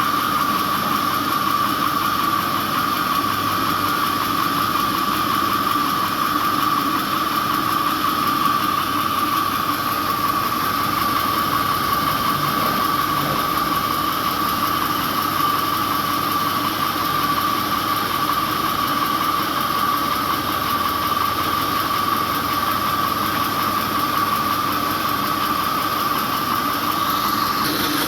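Sawmill machinery running steadily: an even engine drone with a high whine, which drops out near the end.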